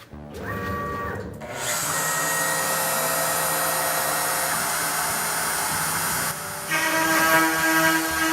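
Homemade CNC router's spindle spinning up, with a short rising whine about a second in, then running at speed with a steady, loud whine as the job starts. About six and a half seconds in the sound shifts and a stronger steady tone joins.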